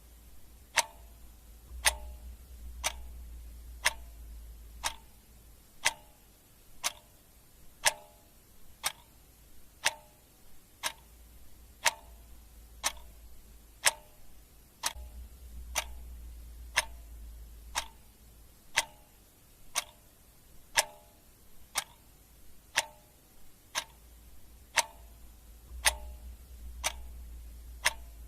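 Clock ticking steadily, about one sharp tick a second. A faint low hum swells and fades behind it a few times.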